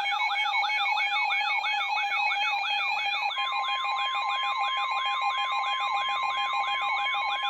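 Electronic alert siren from a NOAA weather radio warbling fast, sweeping upward about four times a second over steady beeping tones. About three seconds in, the steady 1050 Hz NWR warning alarm tone joins it, marking the start of a new warning.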